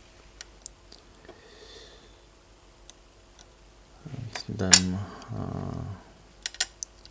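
Faint clicks and taps of small tools on the fitness band's small parts, with a sharp click about two-thirds of the way in that is the loudest sound. A brief wordless murmur of a man's voice comes at the same time, with two more clicks near the end.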